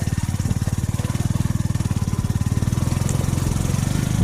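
Small engine running steadily with a rapid, even low beat, growing slightly louder toward the end.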